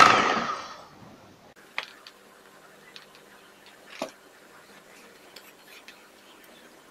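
Electric hand mixer whirring down and stopping in the first second. Then a few light clicks and taps of a silicone spatula against a stainless steel bowl as thick cream cheese batter is scraped, the clearest two about two seconds apart.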